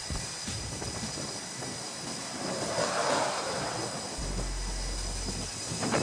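Jet fighter's engines heard across a carrier flight deck as it takes off: a steady jet rush that swells about three seconds in. A low rumble comes in about four seconds in.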